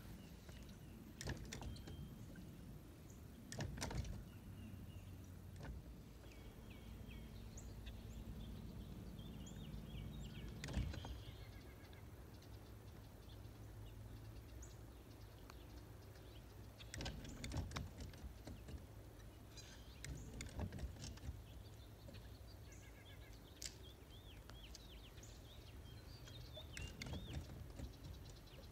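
Quiet outdoor ambience from a small fishing boat: a low steady hum, scattered knocks and clicks, the loudest about eleven seconds in, and faint birds chirping.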